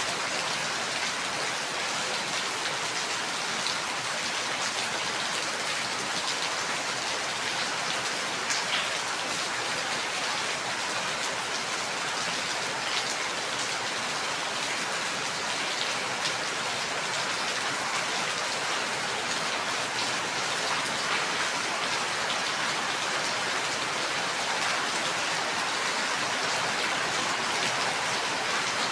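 Steady rain falling: an even hiss of many drops, with scattered sharper single drop ticks.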